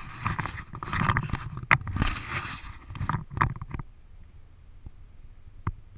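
Camera handling noise: fingers rubbing and knocking on the camera and its microphone, making a run of scratchy, crackling scrapes with a sharp knock before two seconds in. It eases off into a lull, with one more click near the end.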